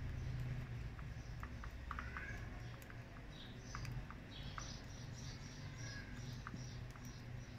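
Budgerigars pecking seed from a hand, sharp little clicks of beaks on seed, while from about three seconds in a budgie gives a run of short high chirps, several a second.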